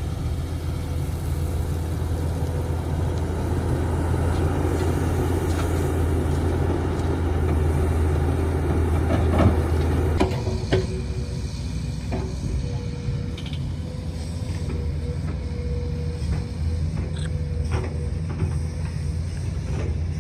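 Hydraulic excavator's diesel engine running steadily under load as it digs and swings soil, with two sharp knocks around halfway. After that the engine settles to a somewhat quieter steady drone.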